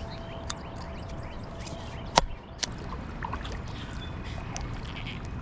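Kayak paddling on a river: steady water noise with small splashes and clicks of the paddle. A single sharp knock about two seconds in is the loudest sound.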